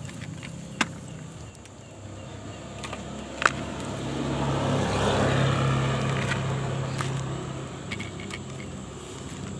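A motor vehicle passing by, its engine hum and road noise swelling to a peak about halfway through and then fading away. Two sharp clicks come about a second in and about three and a half seconds in.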